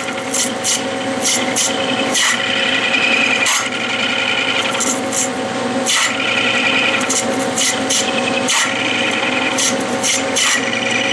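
A hand-fed ISCAR cutoff tool parting off brass in a spinning Clausing lathe: a steady ringing chatter of the cut, broken about every second by short sharp squawks. The brass wants to grab the blade.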